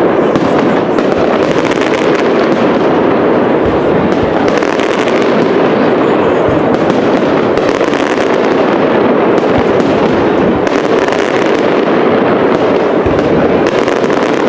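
Castillo aerial fireworks display by Pirotecnia Global-Foc: a loud, continuous barrage of overlapping bangs and crackles with no gaps between them.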